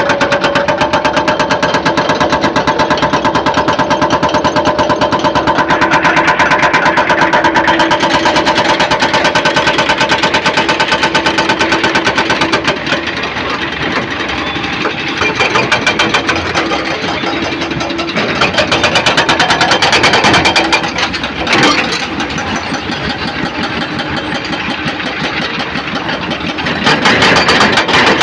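Engine-driven construction machinery running steadily with a rapid, even pulsing. The note changes about halfway through and gets louder again near the end.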